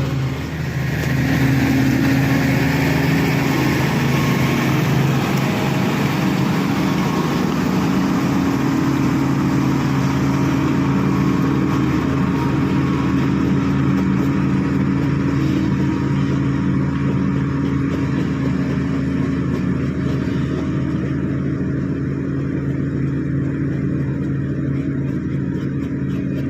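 SD16 bulldozer's diesel engine running steadily under load, a continuous heavy drone with little change in pitch.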